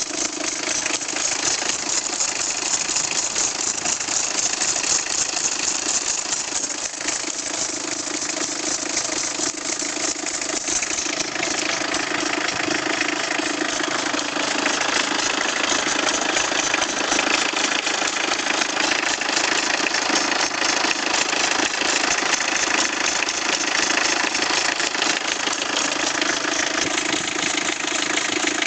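Peugeot 306 diesel engine running steadily at idle, with no revving.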